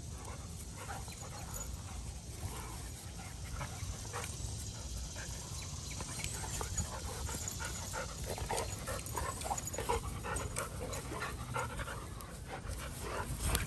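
Dogs panting close by in quick, irregular short breaths, over a low steady rumble.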